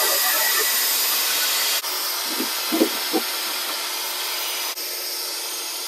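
Compressed air hissing steadily out of a cracked-open air line fitting on a truck's air brake chamber, the leftover pressure in the air brake system bleeding off. The hiss steps down in level about two seconds in and again near the end, with three light knocks about halfway through.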